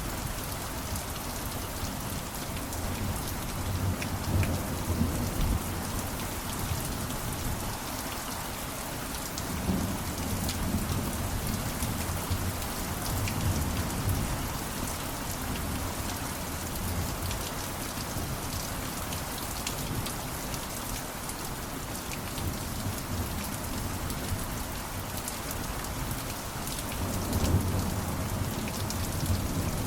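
Steady rainfall with a fine patter of drops. Low rumbles of distant thunder swell up a few times, the loudest near the end.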